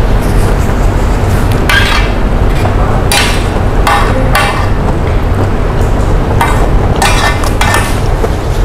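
Metal spoon clinking and scraping against a plate several times, over a steady low rumble.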